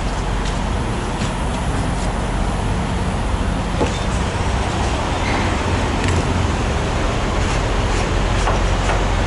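Diesel engine of a Volvo VNL860 semi truck running steadily, a constant low drone under even road and cab noise.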